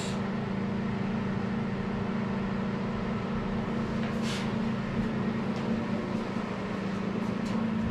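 Steady low hum of a running fan unit. A faint brief hiss comes about four seconds in.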